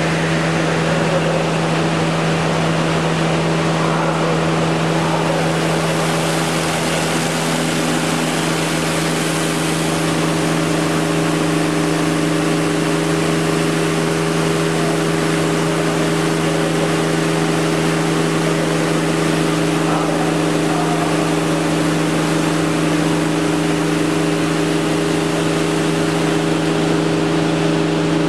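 Accord 40FX CNC machining centre running a spinning abrasive sanding brush along the edge of a wooden panel: a steady machine hum with a few constant tones under a hiss. The tones shift slightly about seven seconds in.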